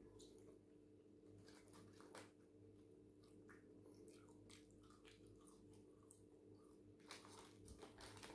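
Faint close-up chewing and mouth sounds of a person eating skinny fries, with scattered soft crunches and clicks. A few louder crunches come about two seconds in and again near the end.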